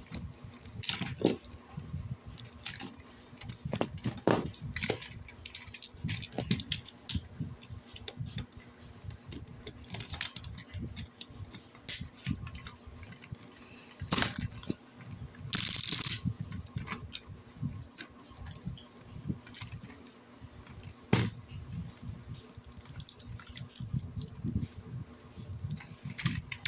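Plastic Tobot transforming robot toy being worked by hand: irregular clicks, snaps and rattles of its plastic parts as they are folded and locked into place, with a brief scrape a little past halfway.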